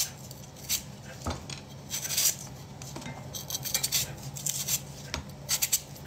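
A knife scraping and cutting at the skin of a piece of fruit held close to the microphone: irregular short scrapes and clicks, coming thicker in the last second, over a low steady hum.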